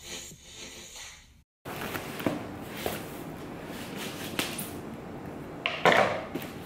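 Hands handling a cardboard box on a tabletop, with light knocks and rubs. Near the end comes a louder clatter as a pair of scissors is set down on the table.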